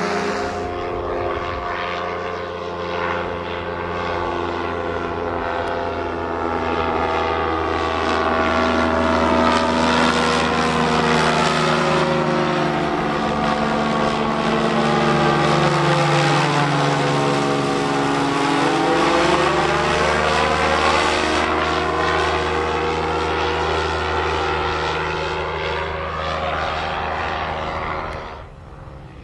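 Quicksilver Sport II ultralight's two-stroke engine and pusher propeller droning steadily in flight. The tone sweeps down and back up about halfway through as the plane passes over, and the sound drops off sharply near the end.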